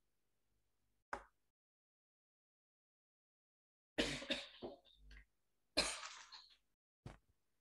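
A person coughing and clearing their throat in short bursts: one brief one about a second in, two longer bouts around four and six seconds in, and a short one near the end.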